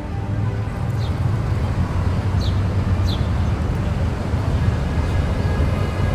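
City street ambience: a steady low rumble of distant traffic, with a few short high chirps about a second in and again around two and a half and three seconds in.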